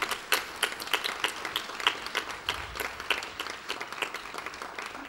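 Audience applauding, with many individual claps distinct, tapering off slightly near the end.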